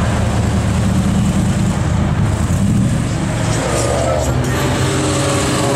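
Sports-car engine in a Shelby Daytona Coupe replica, running at low revs with a deep, steady note as the car creeps past in slow traffic, with other car engines close by.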